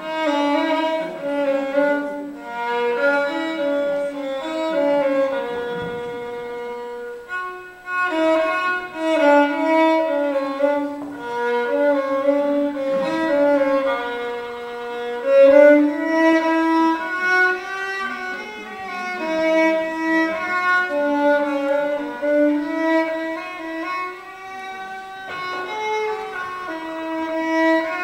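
Solo violin playing a melody of moving and held notes, bowed without a pause.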